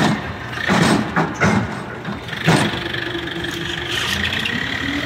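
Tractor engine running steadily at idle while its hydraulic tipping trailer is raised. A few short loud bursts of noise in the first two and a half seconds, most likely earth sliding and dropping off the tipped bed. The engine pitch rises slightly near the end.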